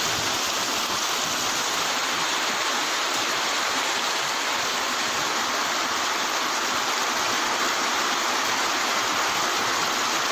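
Heavy rain pouring down onto a wet street: a dense, steady hiss of falling water.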